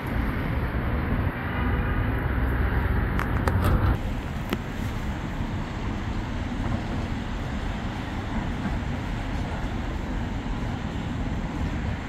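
Downtown city street traffic: a steady mix of engine and tyre noise. A heavier vehicle passes close by in the first four seconds with a low rumble, and a few sharp clicks sound around three to four and a half seconds in.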